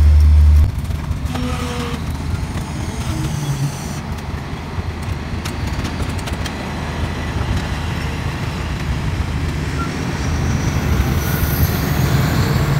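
Steady low rumble of a passenger train standing at a station platform. A louder low hum stops abruptly within the first second.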